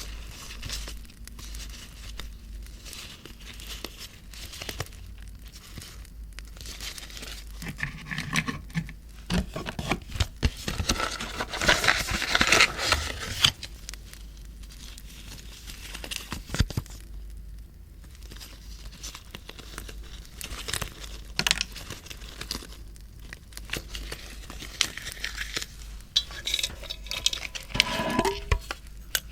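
Paper and packaging being handled close up: crinkling, rustling and tearing with small clicks and taps, busiest about halfway through.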